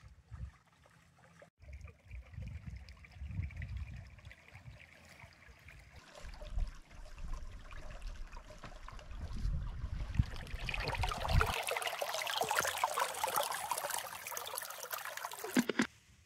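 Wind buffeting the microphone in gusts, then a stream running over rocks that grows louder about ten seconds in and cuts off suddenly near the end.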